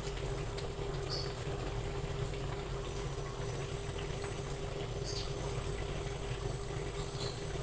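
Thick sauce simmering and bubbling in a wok as squid is stirred through it with a spatula, over a steady low hum. A few faint short high squeaks come about one, five and seven seconds in.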